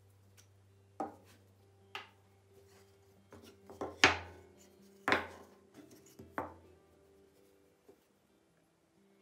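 Small blocks of pallet wood being set down and knocked against a wooden tabletop: a series of sharp wooden knocks roughly a second apart, the loudest about four seconds in.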